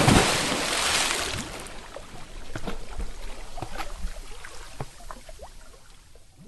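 Water settling after a splash: a loud rush of falling water over the first second and a half, then scattered drips and small gurgles that slowly fade.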